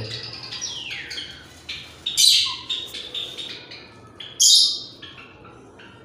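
Pet parakeets calling in shrill squawks and chirps: a falling call about a second in, then loud harsh squawks at about two and four and a half seconds, with softer chirps between.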